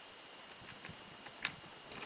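A few faint clicks and knocks, the clearest about one and a half seconds in, from the latch of a wooden sliding shed door being worked.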